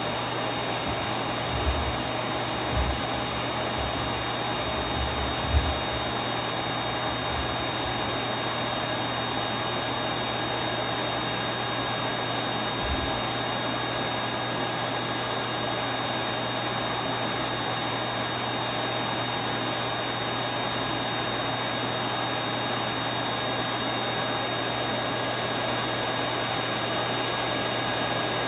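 Vacuum cleaner motor running steadily, a constant whooshing noise with a steady whine, with a few brief low bumps from the machine being handled.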